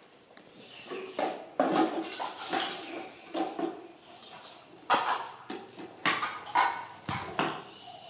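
Plastic and rubber toys knocking and clattering on a tiled floor as they are handled, a string of short knocks that is loudest about five and seven seconds in.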